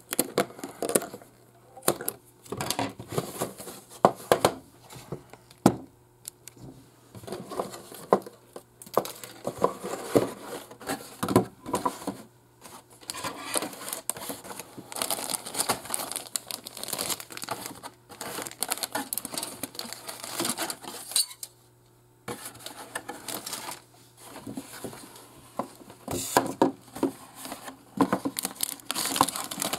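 Unboxing a plastic model kit: scissors cutting the box's tape near the start, then cardboard rustling, clear plastic bags crinkling and hard plastic parts runners clicking and rattling as they are handled, in irregular bursts with short pauses.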